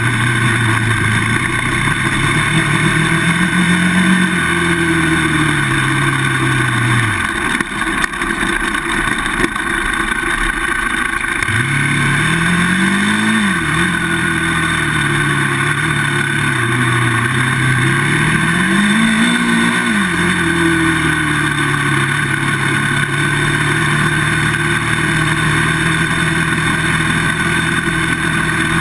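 Polaris Outlaw 525 quad's KTM single-cylinder four-stroke engine running on the trail, its pitch rising and falling with the throttle. About a quarter of the way in the engine note drops away for a few seconds, then comes back with two quick climbing revs before settling into a steady run, rising again at the end.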